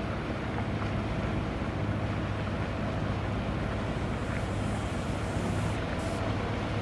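Harbour ambience: a steady low hum with wind noise on the microphone.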